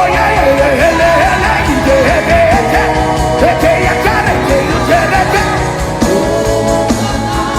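Gospel worship music: voices singing with wavering pitch over sustained instrumental tones and a steady beat.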